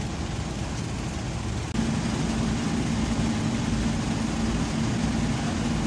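An engine running steadily with a low rumble; a steady hum joins in a little under two seconds in and holds.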